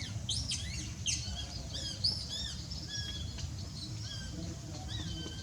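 Several small birds chirping and calling, many short high chirps and whistles overlapping, over a steady low rumble.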